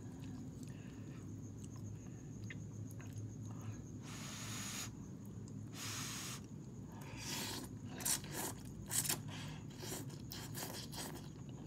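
A person slurping and chewing instant ramen noodles: two long slurps near the middle, then a run of short clicking chewing and sucking sounds.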